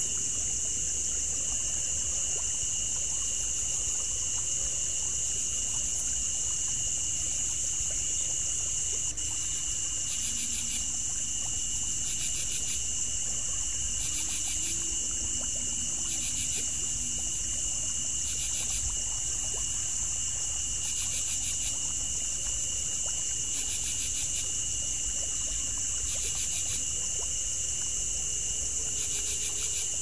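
Insect chorus: a steady high-pitched shrill with short pulsed trills repeating every second or two, over a low trickle of water.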